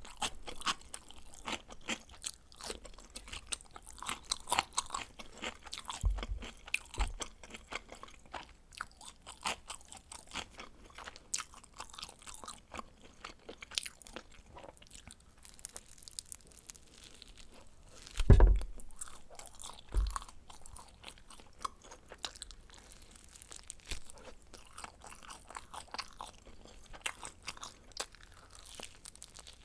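Close-miked chewing and crunching of baked frozen pizza, many small crisp crunches of the crust. A few dull low thumps break in, the loudest about eighteen seconds in.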